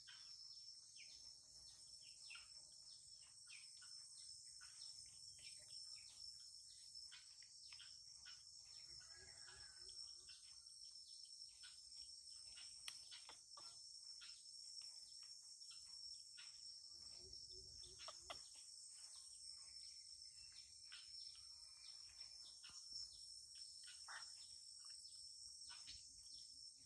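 Faint, steady high-pitched chorus of crickets trilling, with many short chirps and ticks scattered over it.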